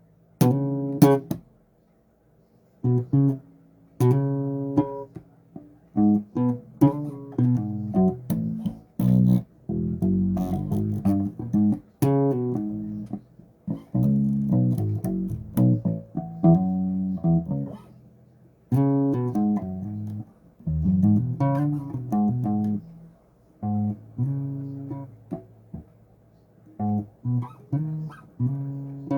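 Bass guitar played solo: plucked single notes in short melodic phrases, separated by brief pauses.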